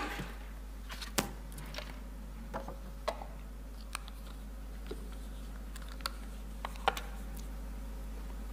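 Irregular light clicks and taps, about a dozen spread unevenly, as things are handled on a wooden lectern close to its microphone, over a steady low hum.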